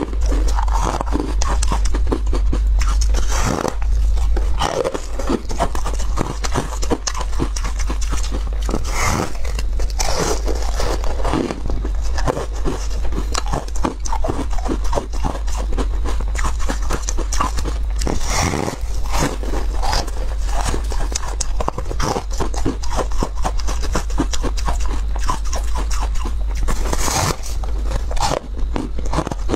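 Crunchy bites and chewing of a large crispy tartary-buckwheat puff block, a close, dense run of irregular crackling crunches.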